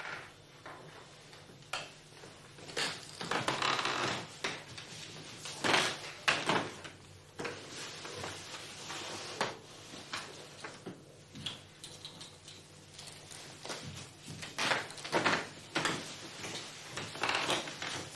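Rustling and handling noises with scattered soft clicks and knocks, like a door or drawer being worked quietly, irregular throughout with a few louder moments.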